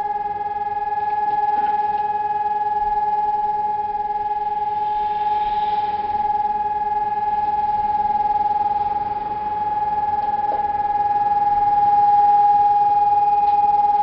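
Civil defence siren sounding the steady, unbroken test tone, heard at a distance, its loudness swelling and easing slightly without any change in pitch.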